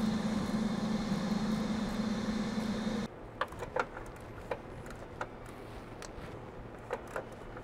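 A power tool runs with a steady hum for about three seconds and cuts off abruptly, followed by several light metallic clicks and taps of tools and bolts.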